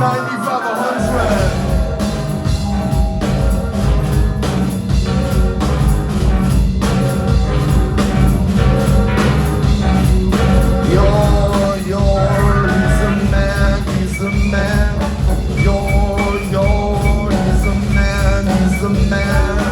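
Live rock band playing an instrumental passage: drums and a heavy bass line, which comes in about a second in, under sustained pitched keyboard-like tones.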